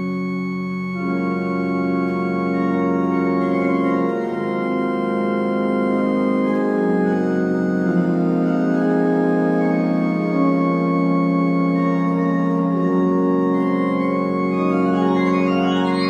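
Pipe organ played on several manuals: sustained full chords over a bass line that shifts every few seconds. It grows louder about a second in, and notes rise in a quick upward run near the end.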